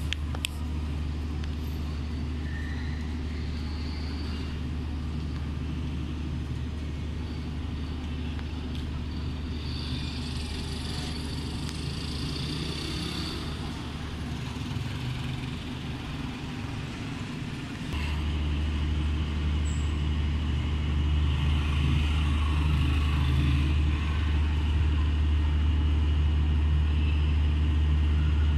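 Outdoor urban ambience of steady road traffic: a continuous low rumble that gets louder about 18 seconds in, with faint higher sounds from the street.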